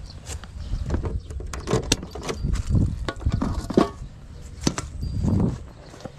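Clicks, knocks and rustling from handling a motorbike's lifted seat and under-seat storage compartment, with several sharp knocks, the loudest about four seconds in.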